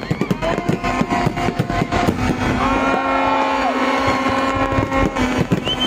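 Aerial fireworks going off in a rapid run of bangs and crackles, over music with long held notes.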